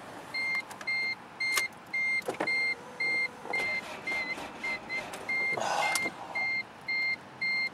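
1988 Toyota Camry's dashboard warning chime beeping steadily, about twice a second, with the key in the ignition. A few sharp clicks and a short rustling burst are heard about halfway through.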